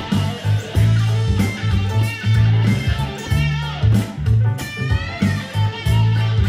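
Electric guitar playing a funk riff: a repeating pattern of short low notes with higher picked notes over them, and a note bent in pitch a little past the middle.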